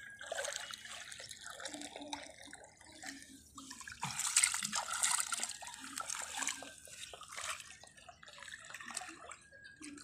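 Shallow seawater splashing, trickling and dripping with many small sharp splashes, louder for a second or so about four seconds in.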